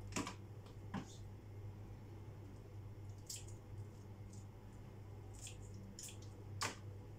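Kitchen scissors snipping the antennae off raw shrimp: a few short, sharp snips, the loudest near the end, over a low steady hum.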